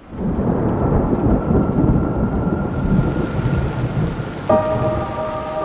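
Thunder rumbling over steady rain, swelling in suddenly at the start. About four and a half seconds in, a few held musical notes come in over the storm.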